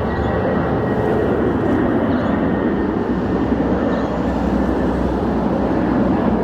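Jet engine noise from a Boeing 787 on final approach: a loud, steady rumble with no breaks.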